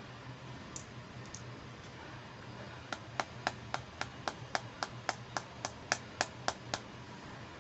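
A few faint ticks, then an even run of about fifteen sharp clicks or taps, about four a second, from handling a small toy accessory.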